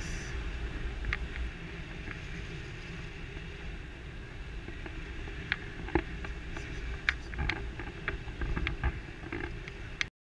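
Wind rushing and buffeting over an action camera's microphone during a tandem paraglider flight, with scattered light clicks and rattles. The sound cuts off abruptly near the end.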